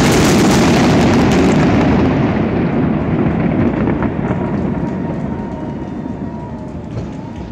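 A fireworks shell bursting overhead with a loud boom and a few sharp crackles in the first two seconds, followed by a long rumble that slowly fades away.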